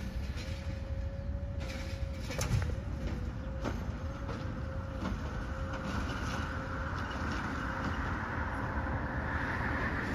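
Garbage truck working a curbside stop: a steady engine rumble with a couple of knocks, then, from about halfway, the engine and hydraulics run up in a rising whoosh as its arm lifts and dumps a cart.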